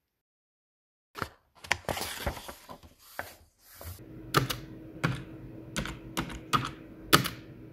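Typewriter key strikes used as a sound effect: a dense clatter of clacks about a second in, then separate sharp clacks, roughly one or two a second, over a faint steady low tone.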